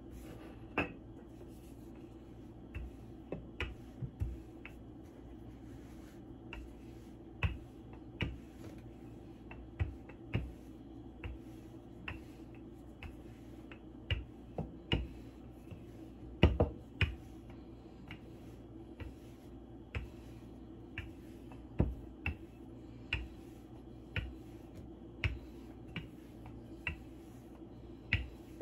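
Wooden rolling pin rolling out pie dough on a wooden board: sharp, irregular clicks and knocks, roughly one or two a second, the loudest about halfway through.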